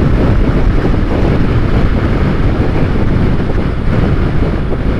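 Loud, steady wind rush on the microphone of a motorcycle riding at highway speed, with engine and road noise underneath.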